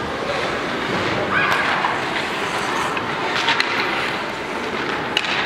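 Ice hockey play: skates scraping across the ice in a steady hiss, with sharp clacks of sticks and puck about three and a half seconds in and again near the end.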